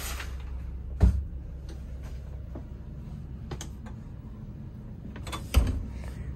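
The motorhome's onboard generator running as a steady low hum, with two sharp thumps about a second in and near the end.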